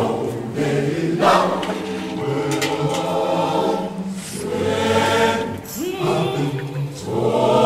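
A group of voices singing a slow song together in harmony, with long held notes.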